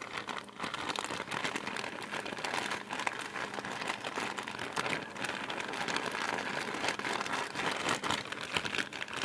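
Continuous crinkling and crackling of something being crumpled and handled close to the microphone.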